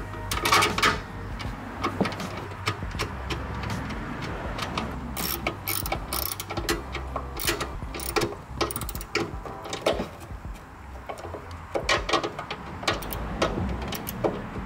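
Hand ratchet clicking in repeated quick runs as a nut and bolt are tightened to fasten a small backup alarm under a car's rear bumper.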